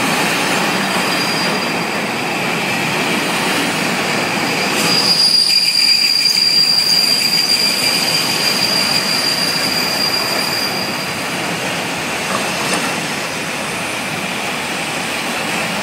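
Cartic car-carrier freight wagons rolling past on steel wheels. A high-pitched steady squeal from the wheels sets in about five seconds in and fades out about eleven seconds in.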